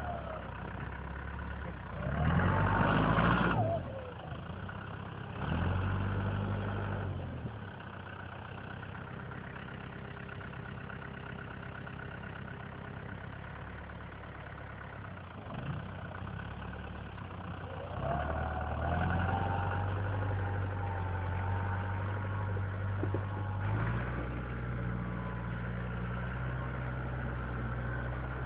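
Lamborghini Cross 70 tractor's diesel engine running steadily while it works snow with its front loader, revving up twice, about two seconds in and again around eighteen seconds, with the pitch rising each time.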